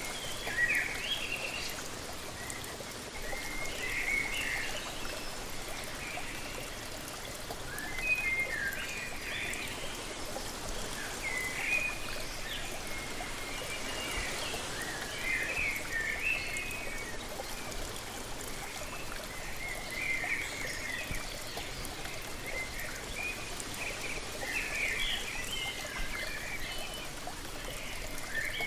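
Steady rush of falling water from a waterfall, with songbirds chirping over it in short bursts of calls every few seconds.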